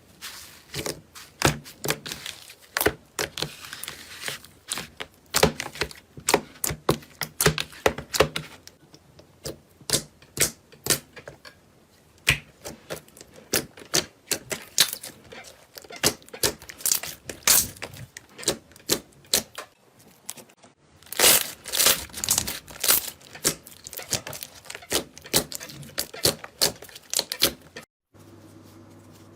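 Slime being squeezed, poked and stretched by hand, giving many sharp, irregular clicks and pops several times a second. The clicking stops abruptly about a second before the end.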